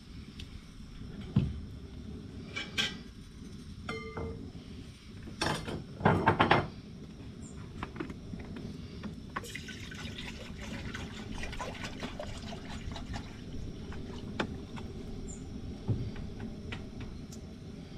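Water running, with scattered knocks and a cluster of loud clattering impacts about six seconds in.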